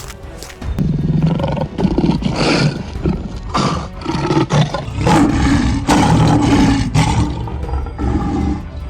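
Big cat roaring: a run of long, loud roars beginning about a second in, over background music.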